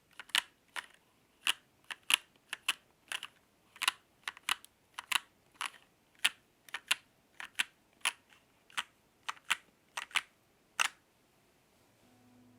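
Royal Kludge RK84 mechanical keyboard being typed on slowly: single sharp keystroke clicks about two a second, unevenly spaced, stopping about a second before the end.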